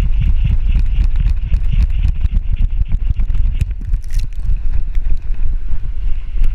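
Heavy wind noise on a GoPro's microphone strapped to a running whippet's back, with quick thuds and knocks of the dog's galloping strides jolting the camera.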